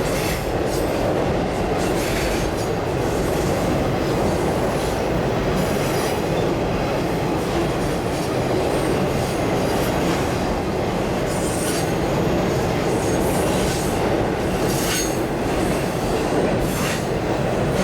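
Motorcycle running at highway speed, with steady engine, road and wind noise on the rider's microphone.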